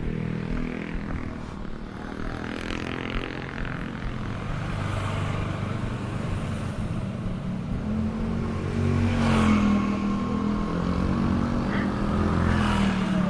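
Street traffic: motorbike and car engines running past close by, with the loudest pass about nine seconds in.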